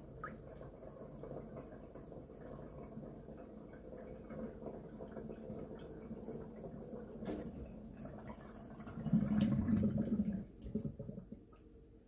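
The last water draining out of a stainless steel kitchen sink, gurgling down the drain with scattered drips. A louder gurgle comes about nine seconds in, then the sound dies away near the end.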